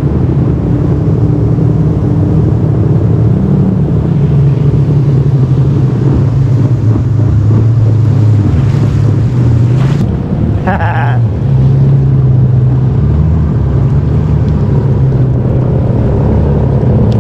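Jet ski engine running at cruising speed, its drone shifting up and down in pitch with the throttle, over rushing wind and water spray.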